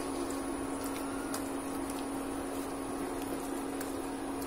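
Steady hum from an induction cooktop running under a pan, one even tone over a faint hiss, with a few faint taps and scrapes of a wooden spatula stirring thick halwa in the pan.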